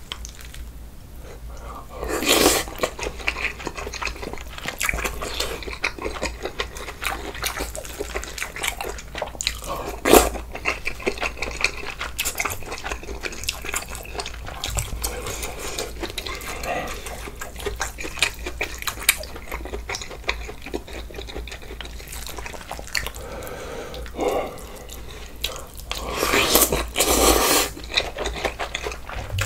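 Close-up eating sounds: wet chewing and slurping of a bulgogi hot pot with glass noodles and spicy kimchi, with scattered sharp clicks. Two longer, louder bursts come about two seconds in and near the end.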